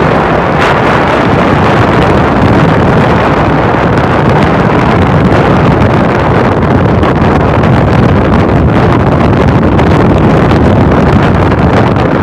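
Wind rushing over the microphone on a passenger boat under way, a loud, steady roar that mixes with the noise of the boat moving through the water.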